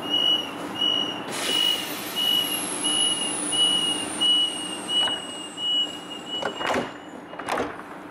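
Deutsche Bahn passenger train doors closing: a high warning beep sounds about twice a second, with a burst of noise about a second in and a faint high whine that slowly falls. Several thuds come near the end as the doors shut, and the beeping stops.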